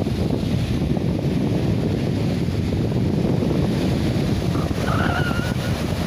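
Sea wind buffeting the phone's microphone as a steady low rumble, over the wash of fairly strong surf breaking on the shore.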